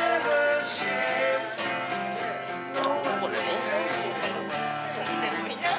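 Acoustic guitar music played live: strummed chords with a melody line over them.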